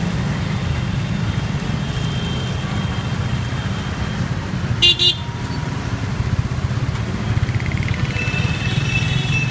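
Steady low rumble of engines and road noise while riding through dense city traffic of motorbikes, scooters and cars. A vehicle horn honks twice in quick succession about five seconds in, the loudest sound; fainter horns are heard near the end.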